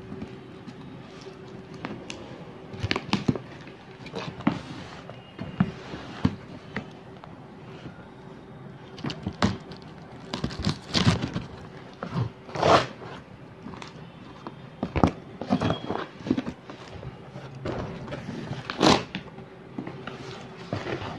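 A key scraping through and tearing plastic packing tape on a cardboard shipping box, with irregular rips, scrapes and cardboard rustles, the sharpest about halfway and near the end. A faint steady hum runs underneath.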